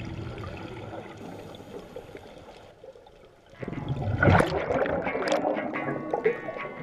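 Quiet underwater hiss, then about three and a half seconds in a sudden loud rush and gurgle of scuba exhaust bubbles streaming up past the underwater camera.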